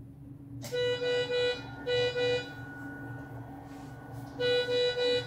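SLE 5000 infant ventilator powering up: less than a second in it clicks on and its alarm sounds, three beeps then two beeps, repeated, in the pattern of a medical high-priority alarm. A thin steady electronic whine from the unit and a low hum run underneath.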